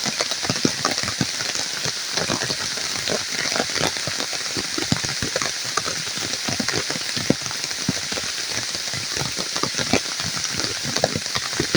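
Steady rain falling, a dense hiss with many individual drops striking close by.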